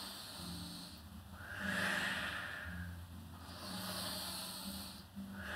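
A woman's audible breathing paced to a Pilates back extension, lifting and lowering the upper body while lying face down: about four slow, hissy breaths, each about a second long, alternating between in-breaths and out-breaths.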